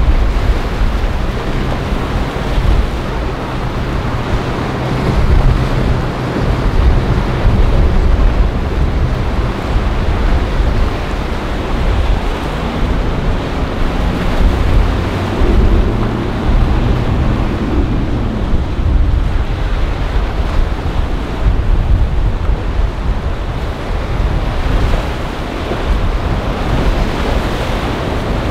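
Wind on the microphone and the wash of waves, with the low hum of a motor yacht's engines. Between about twelve and nineteen seconds in, an outboard-powered boat passes, its engine pitch rising and then falling.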